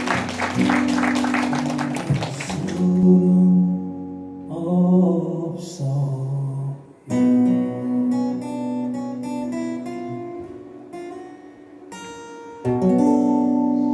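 Acoustic guitar duo playing a Korean folk ballad, with singing, the sound changing abruptly a few times where the performance has been edited together.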